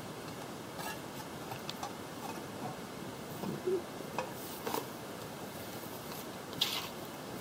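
Scattered light clicks and taps of Powerglide automatic transmission valve body parts being handled and fitted together on newspaper, over a steady hiss; the sharpest click comes near the end.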